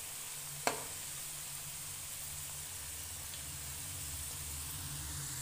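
Potato rolls deep-frying in hot ghee in a metal wok: a steady sizzle over a low steady hum, with one sharp click under a second in.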